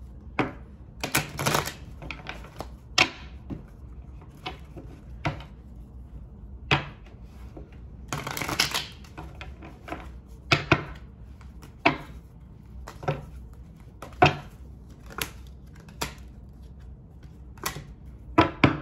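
A deck of tarot cards being shuffled by hand: irregular sharp snaps and taps of the cards, with two longer shuffling runs, one about a second and a half in and one about eight seconds in.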